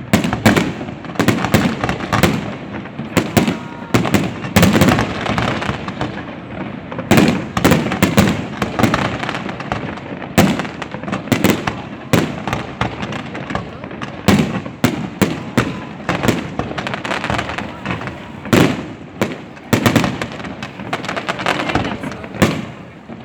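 Fireworks going off: a steady run of sharp bangs and crackling, several a second.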